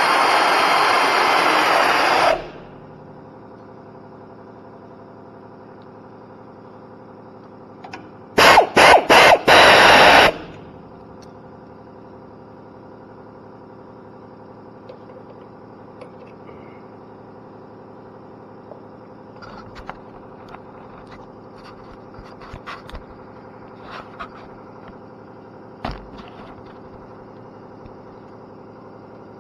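Power tool running bolts in: one run that stops about two seconds in, then four short pulses a few seconds later. Faint clicks of metal parts being handled in between.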